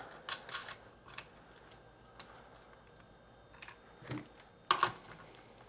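Sparse light metallic clicks and taps of small hardware being handled on a Victron Lynx Distributor's bus bar: washers and a nut set onto a stud by hand. A few sharper clinks come near the end as a torque wrench is picked up.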